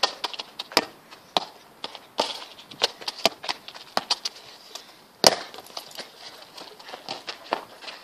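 A football being played: a string of irregular sharp knocks as it is kicked and bounced, the loudest about five seconds in.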